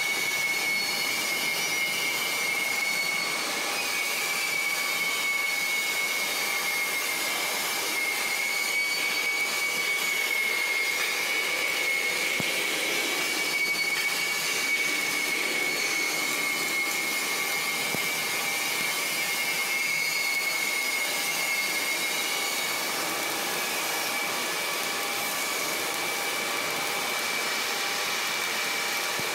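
Steady machinery noise: an even hiss with a constant high-pitched whine, unchanging throughout.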